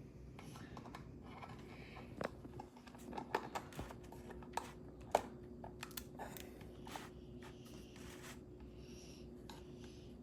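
Small irregular clicks and taps of plastic kit parts, bolts and nuts being handled and fitted by hand, with one sharper click about five seconds in.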